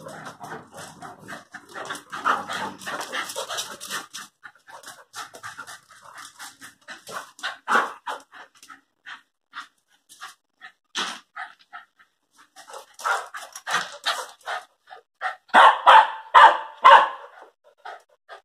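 Airedale terrier and Lakeland terrier at play: panting and scuffling noise, scattered short yips and barks, then a run of loud barks about three-quarters of the way through.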